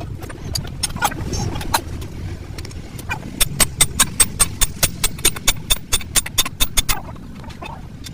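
Rapid, evenly spaced hammer blows, about five or six a second. There is a quieter gap between about two and three seconds in, then a long run of blows that stops about seven seconds in. A steady low rumble runs underneath.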